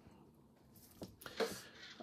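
Faint handling noises in a quiet room: a light tap about a second in, then a couple of brief soft rustles.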